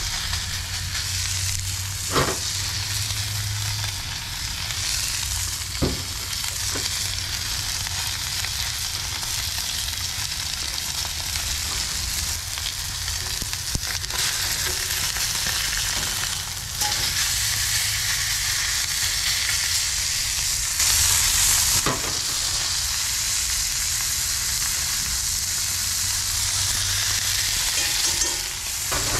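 Porterhouse steak searing in a hot cast-iron skillet: a loud, steady sizzle that surges briefly about two-thirds of the way through. A few sharp clicks come from the metal tongs against the steak and pan.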